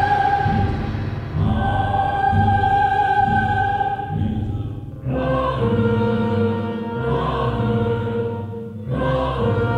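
Film score music: a choir holding long sung notes over a repeating low beat, the chord shifting about five seconds in and again near the end.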